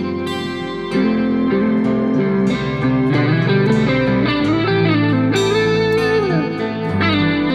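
Background music with a plucked guitar melody over sustained chords; one note bends slowly up and back down about two-thirds of the way through.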